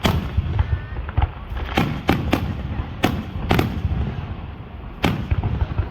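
Fireworks display: aerial shells bursting in a series of sharp bangs, the loudest right at the start and several more following, over a continuous low rumble of booms and echoes.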